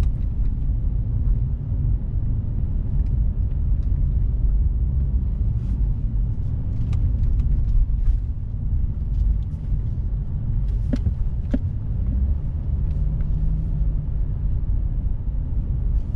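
Steady low rumble of a car's engine and road noise, heard from inside the cabin while driving slowly, with a few faint clicks.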